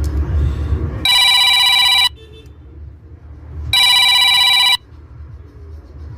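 A telephone ringing twice, an electronic warbling ring about a second long each time, over a low background rumble.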